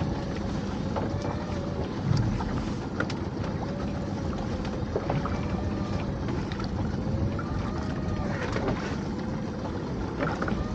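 Small fishing boat's motor running with a whine that rises and falls in pitch every second or two as pots are hauled. Over wind and sea noise come scattered knocks and clatter from lobster pots and rope being handled.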